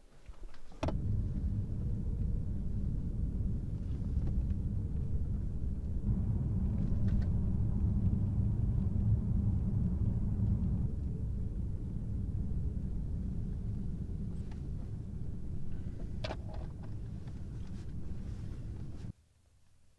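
Steady low rumble of a car heard from inside its cabin. It starts suddenly with a sharp click about a second in and cuts off abruptly near the end, with a couple of faint clicks along the way.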